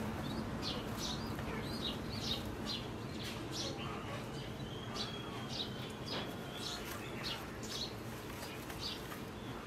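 Pigeon squabs peeping: short, high, squeaky chirps repeating about twice a second, over faint steady background noise.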